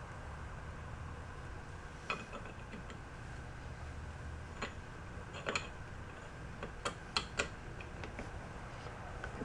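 Light, irregular clicks and taps of metal parts and tools being handled while a bearing race is fitted into a housing, about seven sharp ticks with a cluster of three near the end. A low steady shop hum runs underneath.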